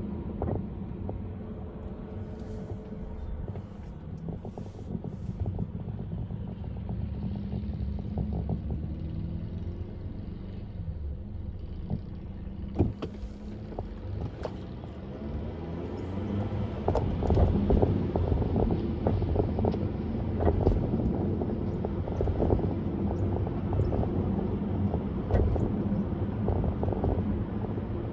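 Car driving along a highway: steady tyre and engine rumble with a few sharp knocks over road bumps, louder in the second half.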